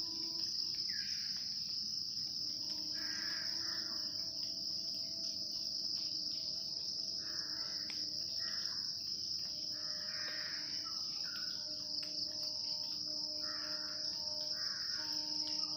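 Insects chirring in one unbroken high-pitched drone, with short lower calls repeating every second or so.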